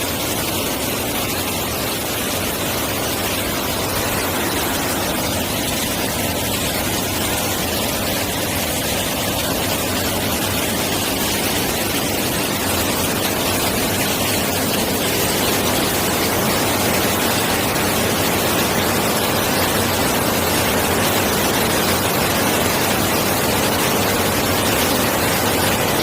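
Steady rush of a mountain stream's flowing water, a dense even hiss that grows slightly louder over the second half.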